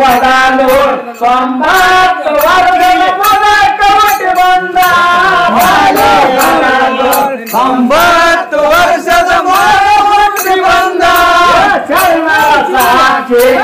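Men singing a Kannada Muharram folk song (Mohram pada) in a chant-like style, with sharp percussion strokes beating along throughout.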